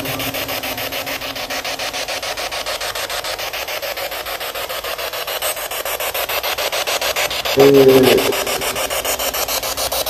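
Spirit box radio sweeping through stations: a rasping hiss chopped into rapid, even pulses several times a second. About seven and a half seconds in, a brief snatch of a voice comes through, the loudest moment.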